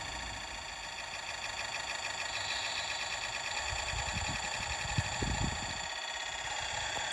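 Garden-railway model diesel locomotive running slowly along the track, a steady mechanical whirr with fast regular ticking, growing a little louder as it approaches.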